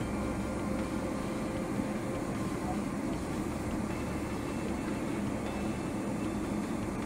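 Steady low rumble and hum inside the cabin of a Boeing 777-300ER as it taxis.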